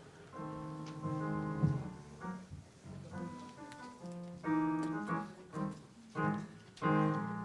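Piano playing a slow run of chords, starting about half a second in: the opening of a musical selection.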